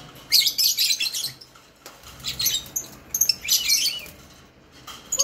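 Young lovebirds chirping in three bursts of shrill, high-pitched chatter, the first and longest near the start.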